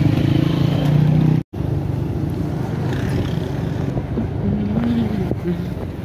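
Motorcycle engine running steadily while riding along a road, with road noise under it. The sound drops out for a split second about one and a half seconds in.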